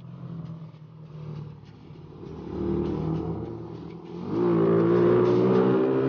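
Motorcycle engine running under way, growing much louder about four seconds in as it accelerates, its pitch climbing gently.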